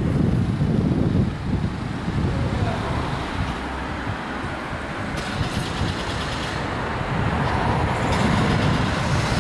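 Outdoor ambience: wind gusting on the microphone over steady road-traffic noise, the traffic growing louder in the second half.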